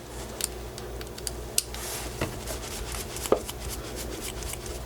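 Small Phillips screwdriver working tiny screws out of an authenticator's circuit board: light scraping with scattered small clicks, two sharper clicks about a second and a half and a little over three seconds in.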